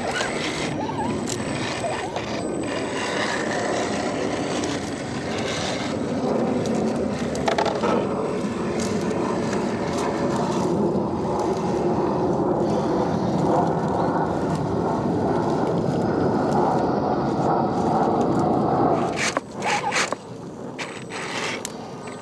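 Radio-controlled scale rock crawlers climbing rocks: their small electric motors and geartrains run steadily while the tyres scrape and grind over the stone. The sound drops off sharply near the end.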